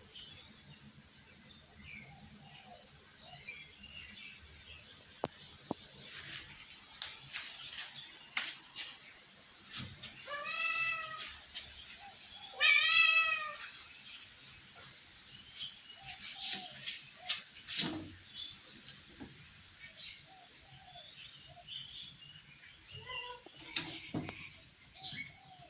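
Cats meowing: two clear meows, a little over ten seconds in and again about thirteen seconds in, the second the louder, followed by fainter short mews later on. A steady high cricket chirring runs underneath.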